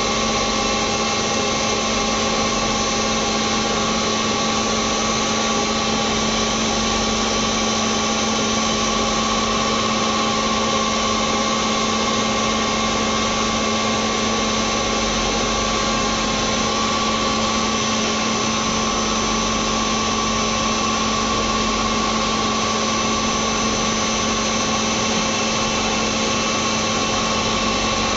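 CNC machine running steadily: an even mechanical hum with a low tone and a higher whine, each held at one pitch, without breaks or knocks.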